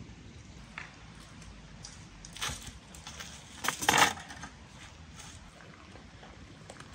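Metal kebab skewers clinking and rattling against each other as they are handled: a short clatter about two and a half seconds in and a louder one around four seconds.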